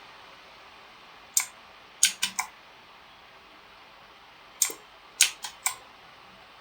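Scattered key presses on an H61K mechanical keyboard with clicky blue switches: a single click, a quick run of four about two seconds in, another single click, then three more in close succession.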